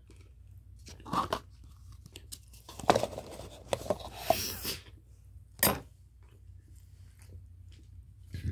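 A person biting and chewing crunchy food close to the microphone, in several short bursts of crunching with quiet pauses between them.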